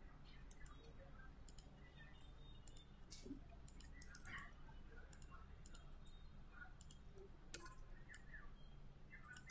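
Faint, scattered computer mouse clicks over a low steady hum.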